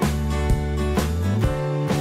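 Background music with a steady beat and sustained bass and chord notes.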